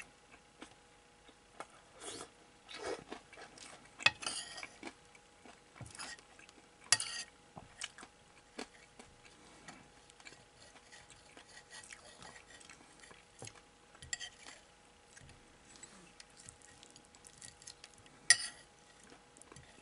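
Metal spoon scraping and clinking against a ceramic plate while scooping up crumbled hamburg steak, in irregular strokes, with sharper clinks about four, seven and eighteen seconds in.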